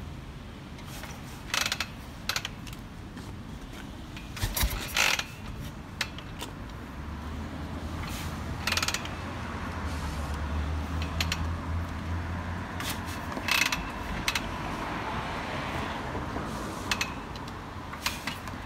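Vintage Harley-Davidson chopper's V-twin being kick-started: repeated kicks on the kick-start lever, each a sharp mechanical clank and ratchet of the kick-start gear, with the engine not yet catching.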